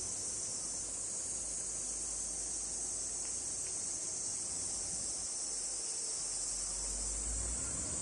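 A steady, high-pitched chorus of summer insects, an unbroken shrill drone.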